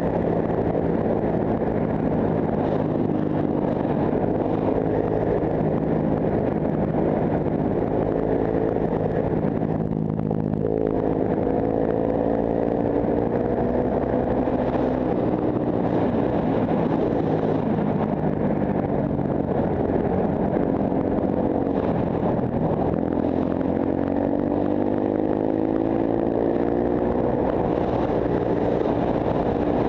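Honda CRF150F's single-cylinder four-stroke engine running under way. The engine note dips briefly about ten seconds in, then climbs again, and rises once more later as the bike accelerates.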